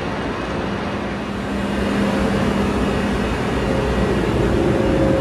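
Steady humming and rushing noise from a high-speed train standing at the platform, with a low hum and a higher tone through it, getting louder about two seconds in.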